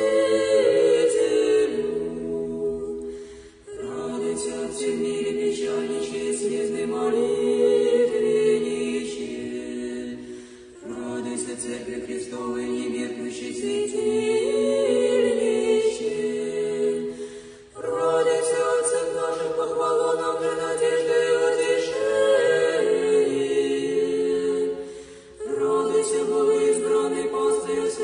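Orthodox church choir singing a cappella, in long phrases of held chords with short breaks between them about every seven seconds: a sung portion of an akathist.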